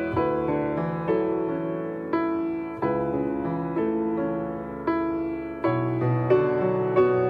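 Piano music: a gentle melody of struck notes and chords, each ringing and fading away before the next.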